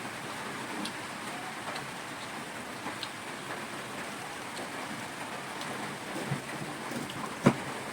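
Eating sounds: chewing and small clicks of food and fingers, over a steady hiss, with one sharper click near the end.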